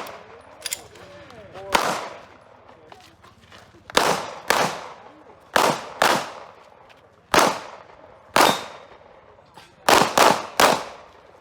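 Pistol shots at uneven intervals, about ten of them, each a sharp crack with an echoing tail, with a quick string of three near the end.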